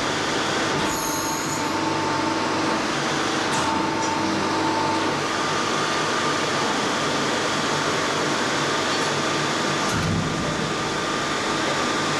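Steady mechanical hum and whir of a running CNC press brake, with a brief high whine about a second in.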